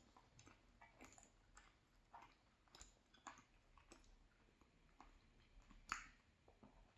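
Faint close-up chewing with scattered wet mouth clicks as someone eats a bite of creamy salmon pie, with a sharper click about six seconds in.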